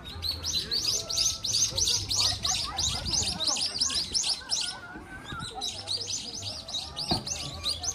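A small bird calling in fast, even runs of high chirps, many a second: one long run, a pause of about a second, then a second run. Faint voices of people walking by sit underneath.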